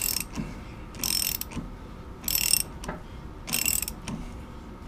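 Socket ratchet clicking on each back-swing while an M20 tap is turned by hand into a hardened steel bar: about four short bursts of clicks, roughly one a second.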